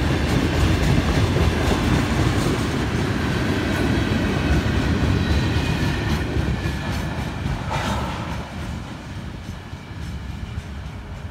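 Florida East Coast Railway freight cars rolling past at close range: a steady rumble and clatter of steel wheels on the rails. It fades over the last few seconds as the end of the train goes by.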